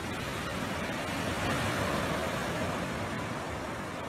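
Surf breaking and washing up a gravel beach, a steady rush of noise that swells about halfway through and then eases.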